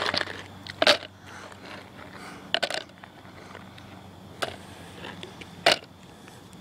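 Small ice cubes being picked up off pavement and dropped into a plastic cup: a handful of sharp, separate clicks and scrapes, two of them close together, about a second apart.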